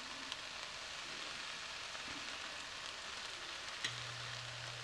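Soft, steady sizzle of a pot of rice noodles cooking on the stove, with a few faint ticks as seasoning granules are sprinkled in. A low hum comes in near the end.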